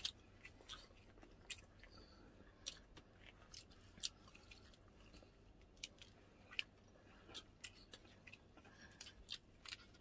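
Quiet eating sounds: scattered soft clicks and crunches of food being chewed and handled, a few each second at irregular intervals.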